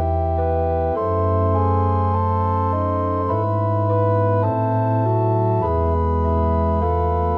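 Ahlborn Hymnus 350 digital church organ playing slow, sustained chords over a deep pedal bass, the harmony changing about once a second.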